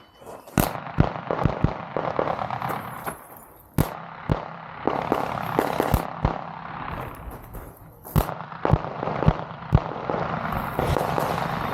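Handgun fired in quick strings of shots during an IDPA course of fire, with short pauses between groups of shots as the shooter moves or changes targets.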